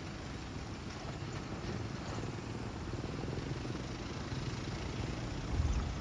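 Alsthom diesel-electric locomotive running as it approaches on the track, a low steady rumble that swells briefly near the end.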